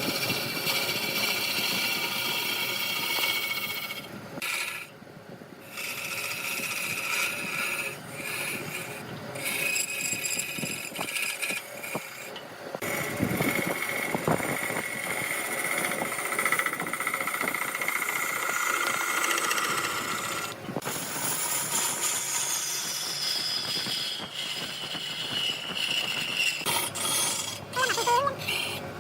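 Wood lathe running with a turning tool cutting the spinning wood, giving a steady high-pitched whine and scraping. It breaks off abruptly a few times.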